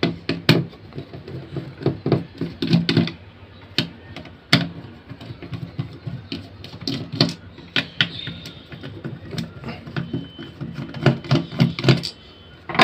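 Direct-AC mains hair trimmer running with a steady buzzing hum and irregular clicks and knocks. The excess noise comes from too large a gap in the trimmer's blade lever.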